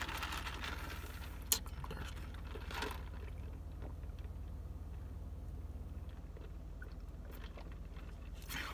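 Steady low hum of a car idling, heard from inside the cabin, with soft sipping through a straw from a paper fountain-drink cup and a single click about a second and a half in.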